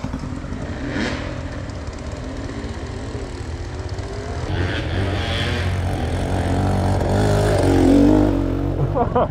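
Enduro dirt bike engine running under changing throttle, its pitch rising and falling as it revs, getting louder toward the end.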